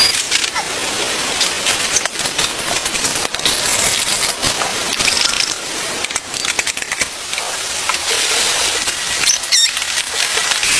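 Heavy rain: a steady hiss with dense, irregular sharp taps and crackles close by.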